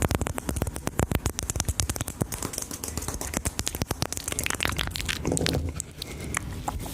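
Close-miked ASMR mouth sounds: rapid wet clicks, many a second, thinning out to scattered single clicks after about two and a half seconds.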